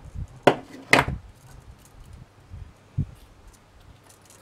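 Two sharp metallic clicks from pliers working jewellery wire, about half a second apart, then a dull knock as the pliers are set down on the work surface.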